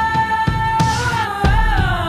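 Background pop-rock music with a steady drum beat and a long held note that wavers in pitch in the second half.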